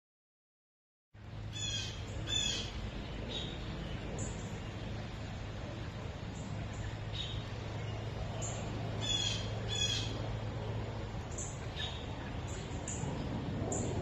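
Shallow rocky creek trickling steadily, with small birds giving short high chirps again and again over it. The sound starts abruptly about a second in.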